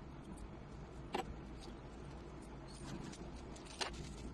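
Faint handling noise of snare drum hardware: two small clicks, about a second in and near the end, over a low steady room hum.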